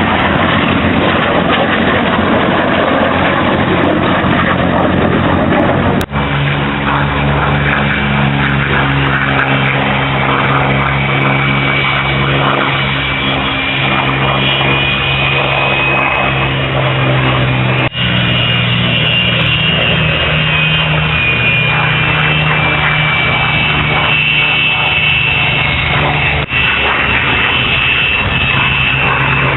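Jet fighters' engines, F-86 Sabre and MiG-15, running as the planes taxi: a steady high turbine whine over a low droning hum. It comes as a string of short clips that cut off abruptly, the first of them a broad rushing noise.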